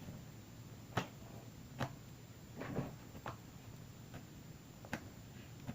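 Crunchy slime being squeezed and worked by hand, giving scattered crisp crackles and pops, about one a second.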